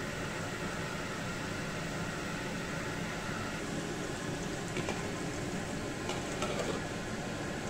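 Marinated chicken leg pieces sizzling steadily as they deep-fry in hot oil in an iron wok, with a few faint clicks about five to six seconds in.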